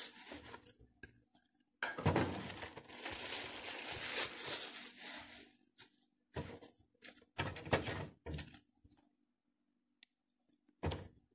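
Crinkly rustling of a plastic bag and papers for a few seconds as they are lifted out of a cluttered drawer, followed by several short knocks and taps as things are moved and set down.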